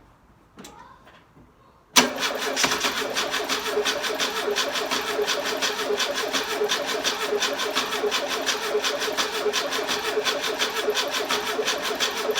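Engine being cranked over in a hard start after sitting unused for six months: it starts suddenly about two seconds in, with a steady, rapid, even pulsing, and runs on for about ten seconds.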